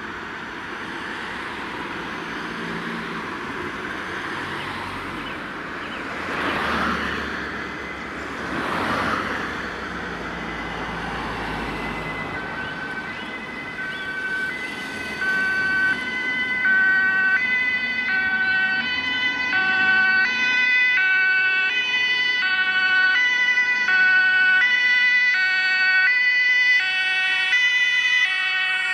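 Two vehicles swish past about a third of the way in. About halfway in, a German two-tone emergency siren (Martinshorn) starts up and alternates between two pitches in a steady, even rhythm. It grows louder as the rescue vehicles approach on an emergency run.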